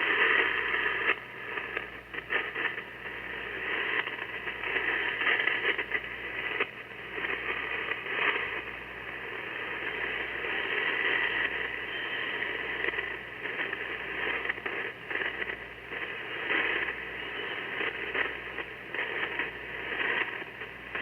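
Noise from a ham radio receiver's speaker: continuous hiss with frequent crackling, squeezed into the narrow band of a radio voice channel.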